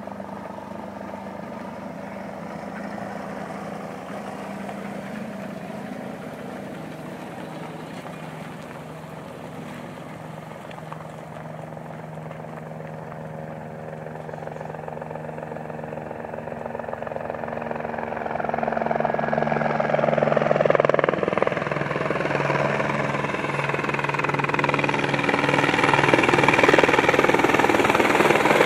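Aérospatiale AS 350 Écureuil helicopter approaching in flight. Its rotor and engine sound starts faint and grows steadily louder as it nears, strongest over the last ten seconds.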